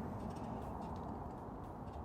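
Steady rushing noise of a bicycle ride, wind and tyres on a path, with faint scattered ticks.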